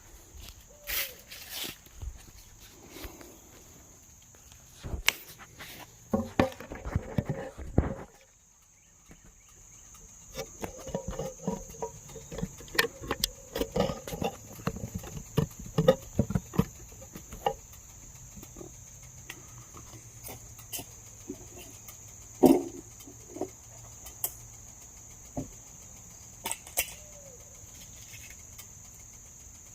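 Crickets trilling steadily at a high pitch, with scattered clicks and knocks through the first half and one sharp crack about two-thirds of the way in.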